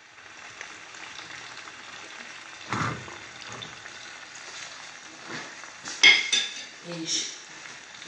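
Sausage, peppers and onion frying in oil in an enamel pot on a gas burner, a steady sizzle. Stirring with a ladle, with a few sharp knocks about three and six seconds in.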